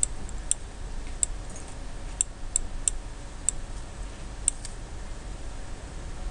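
About nine light, sharp clicks at uneven intervals from a stylus tapping on a pen tablet as digits are handwritten, over a faint steady low hum.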